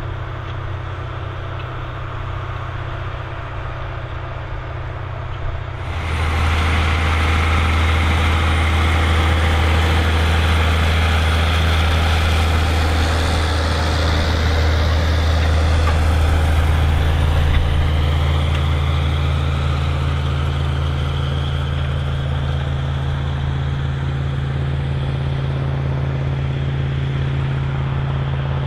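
Big articulated farm tractor's diesel engine running with a steady low drone. About six seconds in the sound jumps louder and fuller, and a little past halfway the engine note steps up in pitch.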